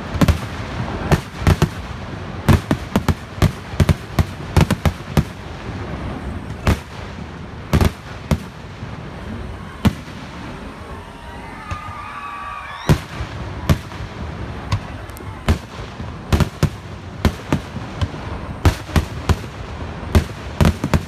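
Fireworks display with aerial shells bursting and crackers going off in rapid, irregular bangs. The bangs thin out briefly about halfway through, then come thick again.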